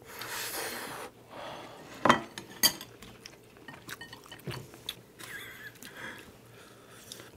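Eating sounds from a bowl of jjapaghetti noodles: a noisy slurp in the first second and wet chewing. Chopsticks knock sharply against a bowl twice, about two seconds in.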